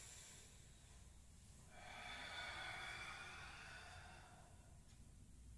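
A person's slow, audible breath, lasting about two and a half seconds from about two seconds in, taken in time with a qigong forward bend. Otherwise a quiet room.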